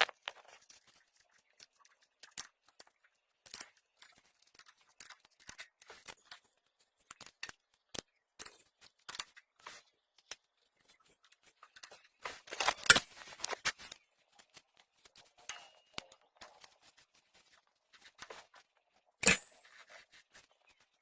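Hand tools and metal scooter CVT parts being handled: scattered small metallic clicks and clinks, a busier clatter just past halfway, and one sharp metal clank with a ringing tail near the end.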